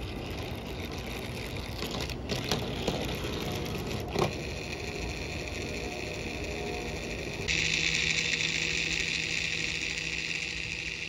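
Small battery motor of a Capsule Plarail toy jet-engine car running, a steady whir with a few sharp plastic clicks about two and four seconds in as the toy train derails. From about seven and a half seconds the overturned car's motor whirs on steadily and louder, a high whine with a low hum under it.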